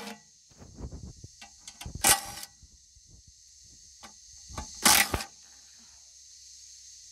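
DeWalt cordless impact driver hammering in two short bursts, about two seconds and five seconds in, as it undoes the nuts on a hydraulic tank's sight glass backing plate, with light clicks of the socket and nuts between.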